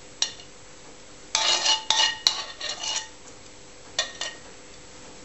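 Metal tongs clinking and scraping against a frying pan as radicchio and cherry tomatoes in balsamic sauce are lifted out onto a plate: one click, then a quick cluster of clinks and scrapes from about a second in, and two more clinks near the end.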